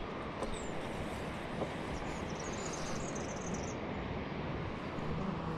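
Steady wind noise rumbling on a handheld action camera's microphone, with a bird chirping a short high warble about two seconds in.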